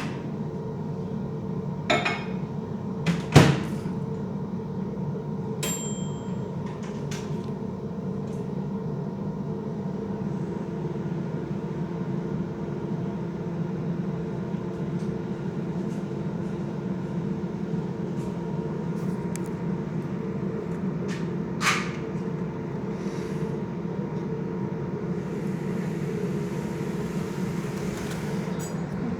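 A steady mechanical hum, like a motor or fan running, with a few sharp clicks and knocks; the loudest knock comes about three seconds in.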